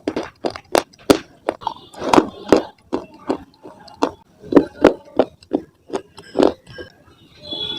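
Close-miked biting and chewing of dry slate stone pieces: a quick, irregular run of hard, gritty crunches, two or three a second.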